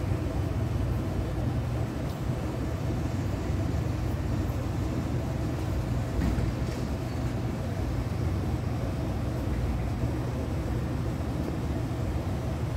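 Steady low machine hum with a constant rushing noise over it, unchanging throughout.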